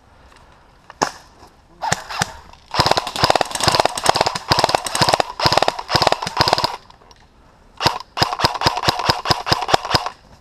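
Airsoft guns firing: two single shots, then two long bursts of rapid full-auto fire, the first about four seconds long and the second about two seconds.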